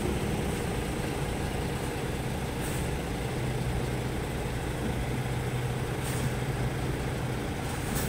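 Semi-truck's diesel engine running at low revs as the rig is eased slowly back toward a loading ramp, with a steady low hum and two brief faint hisses.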